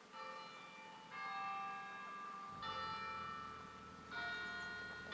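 The bell of Utsukushi-no-Tou, the stone tower on the Utsukushigahara plateau, being rung: four strikes about a second to a second and a half apart, each left to ring on and fade.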